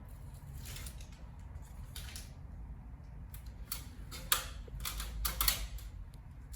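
Scattered light clicks and rustles of peel-and-stick grid covers being handled and pressed onto a drop-ceiling grid, busiest between about four and five and a half seconds in.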